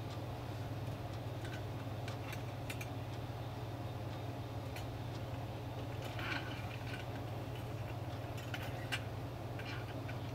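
Small, irregular clicks and taps of fingers handling a wall clock's hands and plastic movement while the second hand is pressed onto the shaft, over a steady low hum. The quartz movement has no battery yet and is not ticking.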